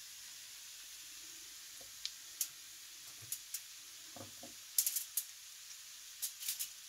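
Scattered light ticks and faint rustles of grated cheese being pinched from a bowl and sprinkled onto a stuffed red pepper over aluminium foil, with clusters of ticks in the second half, over a steady faint hiss.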